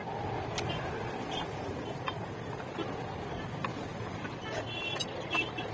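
Light clicks and taps of kitchen utensils against pans while parathas are cooked on a gas stove, over a steady background hum, with a brief high squeaky chirp near the end.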